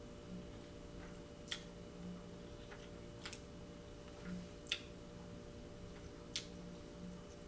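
Faint eating sounds from a metal fork and a ceramic bowl of noodles: a handful of short, sharp clicks a second or two apart, the sharpest about halfway through, over a low steady hum.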